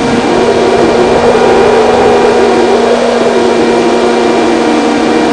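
Electric RC plane in flight, heard from its onboard microphone: the motor and propeller drone at a steady pitch over loud rushing wind noise.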